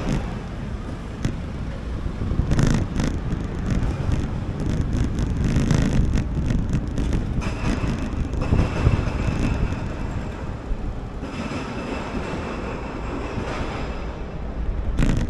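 Steady city street noise: a continuous rumble of traffic, with wind buffeting the microphone now and then.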